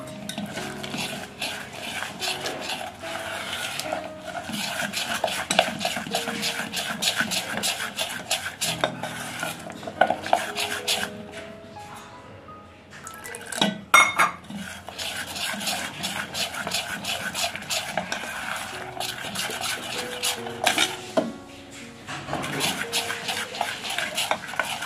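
Steel spoon beating thick besan batter in a stainless steel bowl: rapid clinking and scraping of the spoon against the bowl. The beating pauses briefly a little after halfway, then starts again with one sharp clink.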